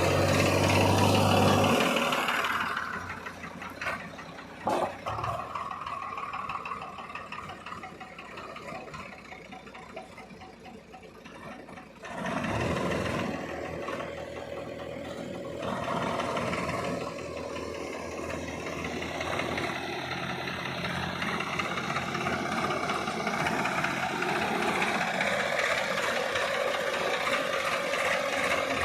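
Heavy diesel engine running. It is loud for the first two seconds, drops back, then comes up again about twelve seconds in and holds steady, with a single sharp knock about five seconds in.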